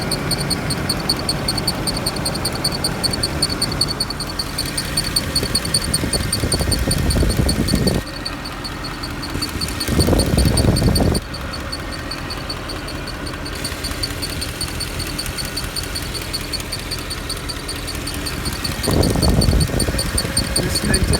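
Mercedes E63 idling with a high-pitched whine that pulses rapidly and evenly over the engine's steady low running, which the owner takes to come from one of the fans. Louder low rumbles swell in briefly about ten seconds in and again near the end.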